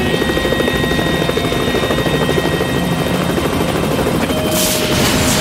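Helicopter sound effect: a fast, steady rotor throb with a high whine over it. Near the end a sudden rush of noise breaks in as the hut is smashed.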